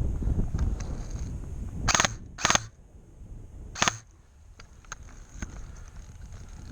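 Airsoft guns firing three sharp shots: two about half a second apart about two seconds in, and a third near four seconds. A low rumble of handling and wind noise runs under the first seconds.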